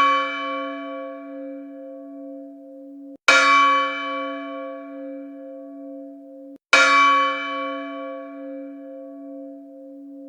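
A large bell tolling slowly, struck twice about three and a half seconds apart while an earlier stroke is still ringing. Each stroke starts bright and fades to a steady low hum, then cuts off sharply just before the next.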